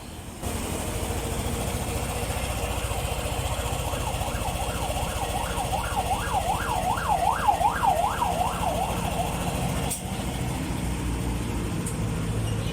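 Yamaha NMAX scooter's single-cylinder engine running steadily after its worn exhaust rocker arm and damaged exhaust valve were replaced, the repair for a knocking engine. From about four to nine seconds a siren wails up and down in the background.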